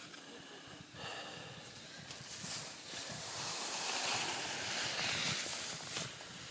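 Wind rushing over the microphone and the hiss of sliding over snow during a descent down a ski run. It builds about two seconds in and is loudest through the middle.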